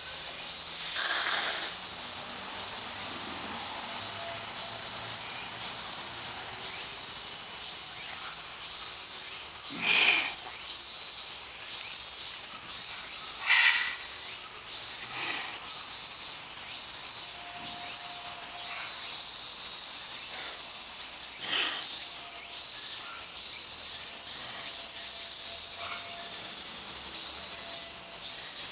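A steady, high-pitched insect chorus drones throughout. Over it come a few short, sharp huffs, about a second in, near 10 and 14 seconds, and again near 15 and 21 seconds. These are the angry snorts of a Siberian lynx.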